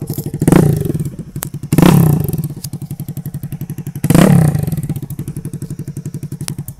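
Jawa 42's single-cylinder engine running on short open free-flow bend pipes with the stock silencers removed, quite loud. It idles with a fast, even pulsing beat and is blipped three times, each rev jumping up sharply and falling back to idle.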